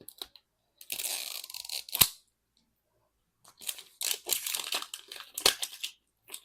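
Outer wrapping of a Mini Brands capsule ball being torn and ripped off by hand, in two spells of tearing and crinkling, each with a sharp snap. It is a struggle to tear open.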